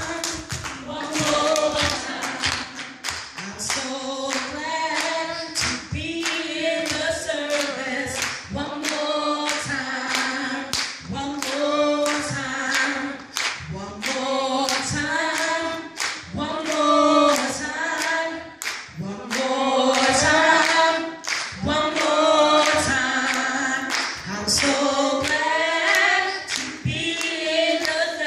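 A woman singing a gospel song unaccompanied into a microphone, with steady hand claps keeping the beat.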